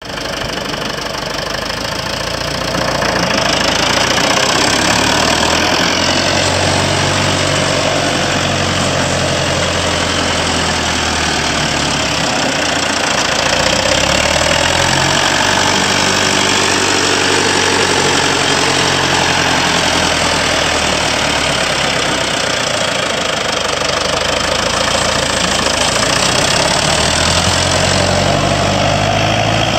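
MAN AS440A tractor's diesel engine running as the tractor pulls away and drives by, its pitch rising and falling with the throttle. It grows louder about three seconds in.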